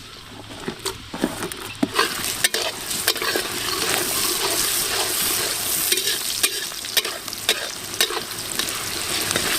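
Chopped onions sizzling as they fry in hot oil, stirred with a utensil against the pan, with irregular scraping clicks over a steady hiss. The hiss builds over the first few seconds, then holds.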